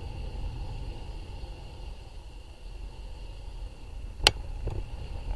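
Low rumble of riding and wind on a handlebar-mounted camera's microphone as a bicycle climbs slowly, with a faint steady high hum. A single sharp click about four seconds in, then a softer one just after.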